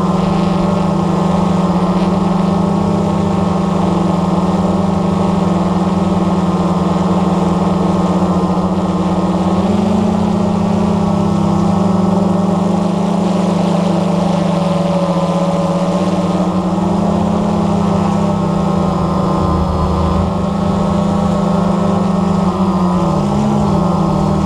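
Blade 350 QX3 quadcopter's four electric motors and propellers running in flight, heard from the camera mounted on the craft: a loud, steady buzzing drone whose pitch wavers briefly about ten seconds in and again near the end.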